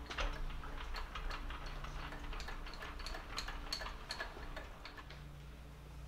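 Rapid, irregular light metallic clicks and ticks, several a second, as a large engine lathe's carriage is worked by hand. They stop about five seconds in, leaving a low steady shop hum.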